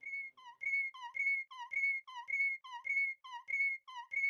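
A whistle-like chirp repeating steadily about every 0.6 seconds, some eight times: each a short dipping low note followed by a higher held note.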